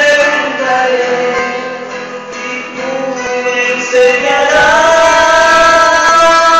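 Christian worship song sung with instrumental accompaniment: a voice holds long notes, then slides up to a higher held note a little past halfway.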